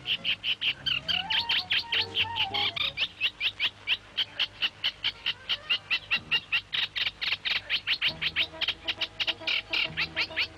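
High, short chirps repeated evenly, about six a second, with soft music underneath.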